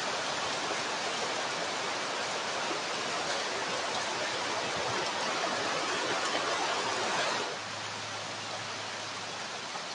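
A steady hiss, like rushing water or wind noise, that drops abruptly to a quieter hiss with a faint low hum about seven and a half seconds in.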